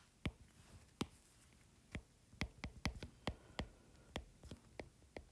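A stylus tip tapping on an iPad's glass screen in handwriting: faint, irregular sharp taps, bunched most closely around the middle.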